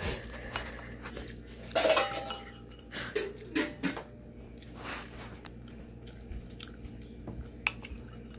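Metal spoon clinking and scraping against a ceramic soup bowl and plate while eating: scattered clinks, the loudest cluster about two seconds in.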